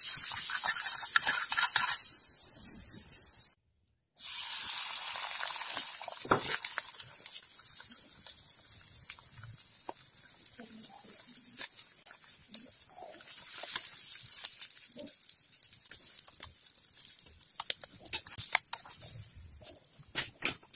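Butter and egg sizzling in a nonstick frying pan: a loud hiss for the first few seconds, a brief break, then a quieter, steady sizzle with scattered clicks and taps.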